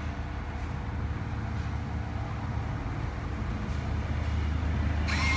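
Vending machine banknote acceptor drawing in a 20-baht note, its motor giving a short whir with a steady whine near the end, over a steady low rumble.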